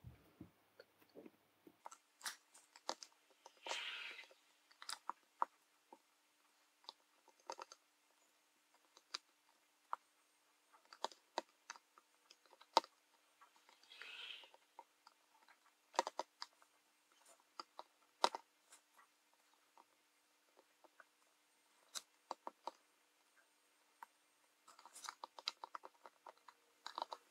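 Faint, scattered clicks and ticks of steel tweezers and a soldering iron tip setting and holding tiny surface-mount resistors on a circuit board, with two brief soft hisses.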